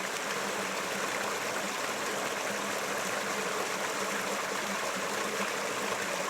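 River water flowing steadily, an even rushing wash with no breaks.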